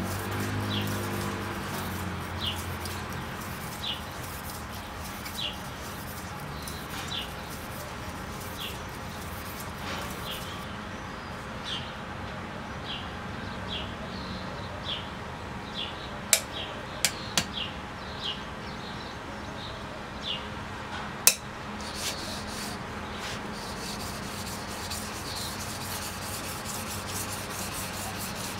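A cheap chisel-ground knife blade stroked back and forth across a wet sharpening stone, a steady scraping rub that stops for several seconds midway. During the pause there are a few sharp clicks, the loudest sounds here. A bird chirps about once a second throughout.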